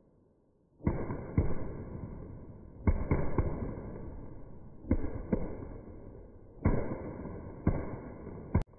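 Firecrackers going off on paved ground: about ten sharp bangs at irregular intervals, starting about a second in, each dying away quickly, with a last sharp crack near the end.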